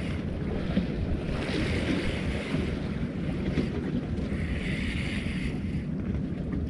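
Wind buffeting the microphone over sea water lapping at the shore, a steady low rumble, with a few second-long stretches of higher hiss.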